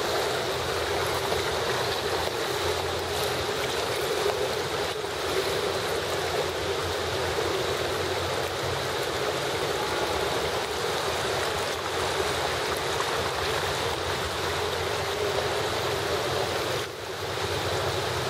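Steady rushing water noise of a swimming pool, even throughout, with a short dip about a second before the end.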